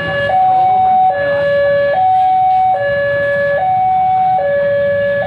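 Railway level-crossing warning alarm sounding a steady two-tone electronic signal, switching between a lower and a higher tone about every 0.8 seconds, which signals that a train is approaching. Motorbike engines idle underneath.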